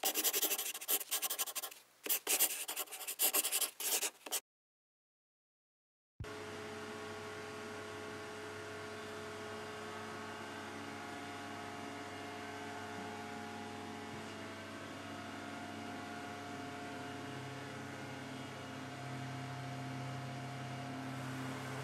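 Pen scratching across paper in quick drawing strokes for about four seconds, then a short gap of silence, then a steady hum with several held tones.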